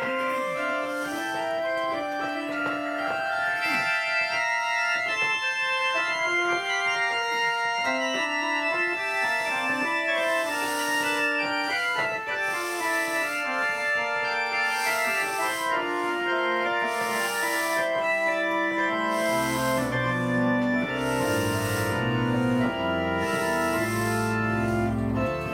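Three-manual digital classical organ playing a fast, many-voiced passage on the manuals; a deep pedal bass line comes in about twenty seconds in.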